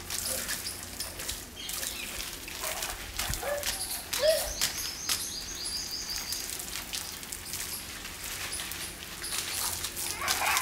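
Garden hose spraying water at low pressure, a steady spattering hiss as the spray hits the plants and the concrete. Small birds chirp briefly about four to six seconds in.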